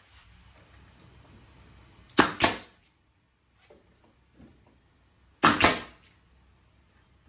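Pneumatic finish nailer firing twice, about three seconds apart, driving 2.5-inch finish nails into wood. Each shot is a sharp double crack.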